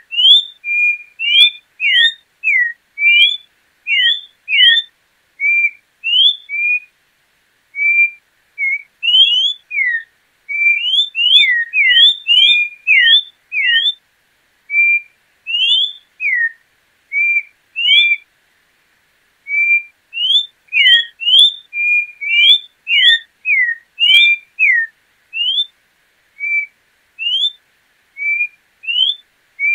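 Orange-backed troupial (João-pinto) singing: a long series of loud, clear whistled notes, rising slurs alternating with short level notes, delivered in quick phrases with a couple of brief pauses.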